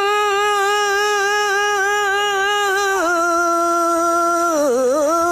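A voice singing one long, drawn-out soulful note with vibrato, the comic wind-up to a 'soulful sneeze'. About three seconds in it steps down in pitch, wavers through a short run of notes near the end, and holds on.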